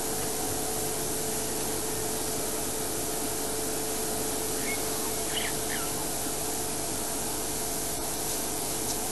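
Steady hiss with a faint constant hum, even in level throughout. A few faint short chirps come about five seconds in.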